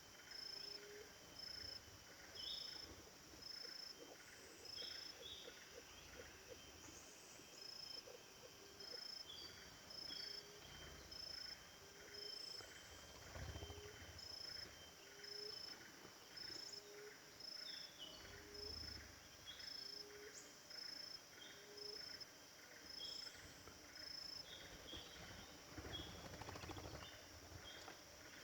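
Faint chorus of wild animals, likely insects, calling in steady repeating rhythms: short high chirps a little more than once a second, with low short notes about as often.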